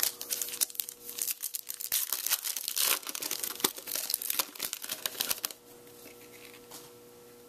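Foil wrapper of a Topps Finest baseball card pack torn open and crinkled by hand: a dense crackling that stops about five and a half seconds in.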